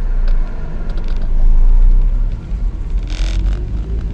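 An old car driving, heard from inside the cabin: a steady low engine and road rumble, with the engine note rising as the car picks up speed about three seconds in. A short hissing noise comes at about the same moment.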